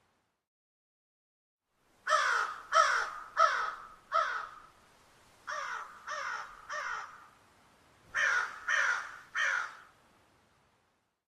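Crows cawing, starting about two seconds in: four loud caws, then three softer ones, then three more, each caw harsh and dropping in pitch.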